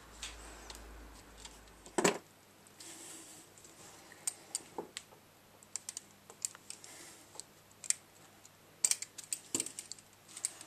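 Pliers and a motorcycle brake caliper half being handled while the caliper pistons are pulled out: a run of light clicks and taps, with one louder knock about two seconds in.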